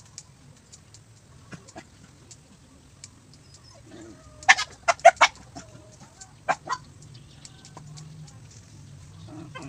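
Chicken clucking: a quick run of four short, loud calls about halfway through, then two more a second or so later.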